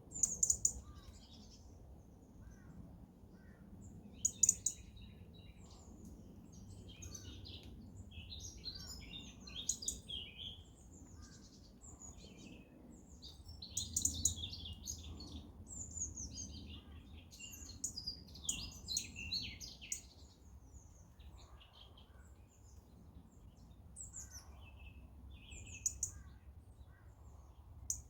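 Wild songbirds calling with many short, high chirps scattered throughout, over a faint low steady rumble of outdoor background.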